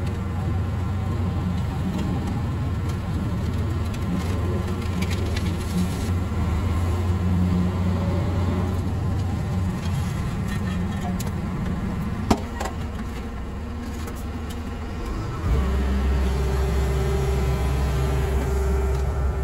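Diesel engine of a Sumitomo HA45W asphalt finisher running steadily during paving. There is a sharp click about twelve seconds in, and a few seconds later the engine note changes as a steady higher hum joins it.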